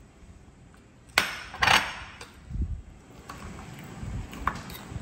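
Two sharp knocks a little over a second in, the second the loudest, then a few softer taps as a kitchen knife slices food on a wooden end-grain cutting board.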